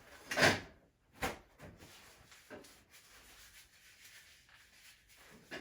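Handling noises while working on an RC car's exhaust pipe. A short rubbing swish about half a second in is the loudest sound, a sharp knock follows just over a second in, and a few faint taps come later.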